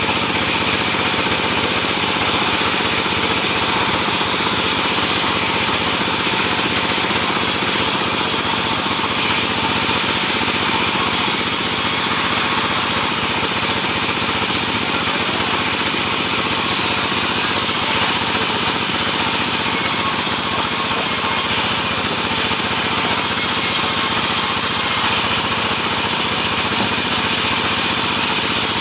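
Sawmill saw running and cutting sengon (albizia) timber: a loud, unbroken mechanical noise with a steady hum under it.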